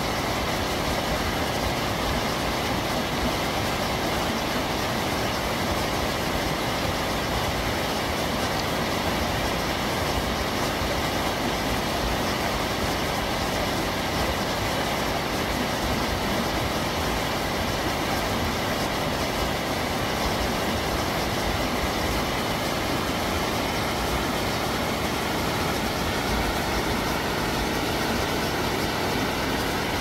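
Steady rush of a mountain stream's white water tumbling over rocks.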